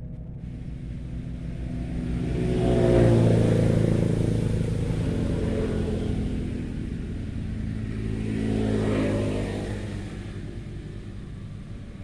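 Motor vehicles passing by one after the other: an engine hum and road rumble swells to a peak about three seconds in, fades, then swells again near nine seconds and dies away.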